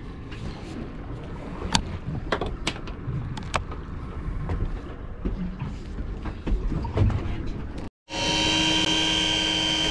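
Sharp metallic clicks from handling a single-shot .410 shotgun, over a low rumble of wind and water. About eight seconds in, an electric fishing reel starts up with a steady motor whine as it winds in line.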